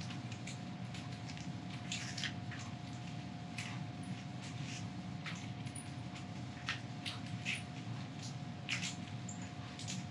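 Steady room hum with one constant tone, and scattered short, light clicks and squeaks at irregular intervals.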